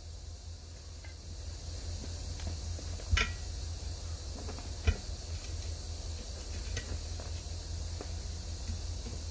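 A few light metallic clinks of a steel tire iron against a 19.5-inch truck wheel rim, the strongest about three seconds in with a short ring and fainter ones later, over a steady hiss and low rumble.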